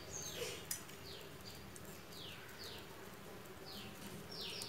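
Faint, repeated short high chirps, each sliding down in pitch, coming singly and in pairs about every half second to a second, from a small calling animal.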